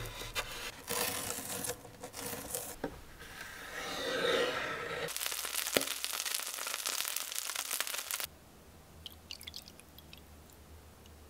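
A knife chopping scallion stalks on a cutting board, a series of crisp knocks. Then oil sizzling steadily under a frying seafood scallion pancake, cut off abruptly. Last comes a faint trickle of rice wine being poured into a glass.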